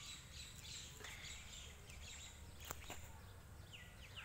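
Faint bird chirping: a quick run of short, downward-sweeping calls, thickest in the first second and returning near the end. A single sharp click sounds about two and a half seconds in.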